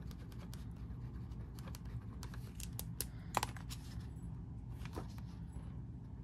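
A Uniball Zento pen writing on vellum notepad paper: light scratching and small tapping clicks of the tip, with one sharper click about three and a half seconds in.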